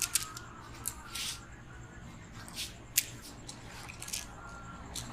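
Hands working over an oiled head and neck in a head massage, giving scattered sharp clicks and snaps, the loudest about three seconds in, with a short swish around one second.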